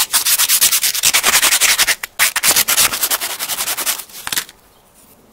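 Hand sanding: a small tool bit's tip rubbed on abrasive paper in rapid, even back-and-forth strokes to file it to a flat bit profile. The strokes pause briefly about two seconds in and stop about four and a half seconds in.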